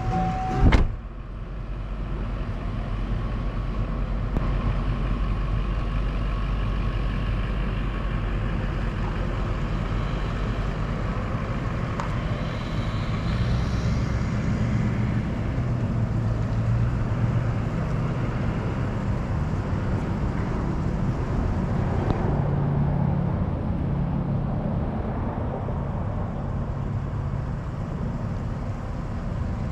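Steady motor-vehicle rumble with a low engine drone that comes and goes. Just under a second in, a steady tone stops at a sharp thump, the loudest sound in the stretch.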